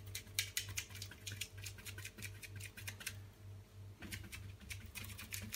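A 2-inch blending brush scratching and stamping acrylic paint onto a canvas board: a fast run of dry bristle strokes, about five a second, that stops for a moment about three seconds in and then starts again.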